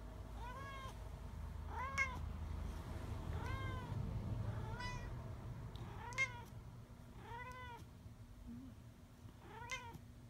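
Domestic cat meowing repeatedly: about seven short meows, roughly one every second and a half, each rising then falling in pitch.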